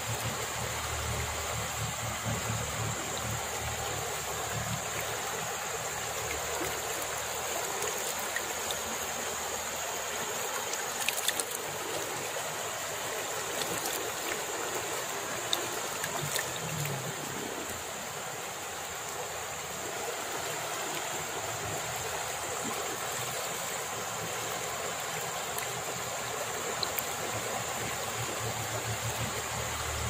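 Shallow river flowing over and around rocks: a steady rushing of water, with a few brief clicks around the middle.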